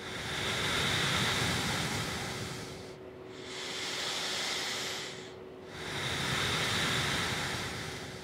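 A man's slow, deep breaths, three long breathy swells of about two to three seconds each with short pauses between.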